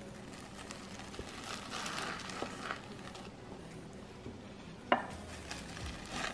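Metal bench scraper pressed down through a pan of Rice Krispies treats in a glass baking dish, making soft scraping sounds. There is one sharp click about five seconds in.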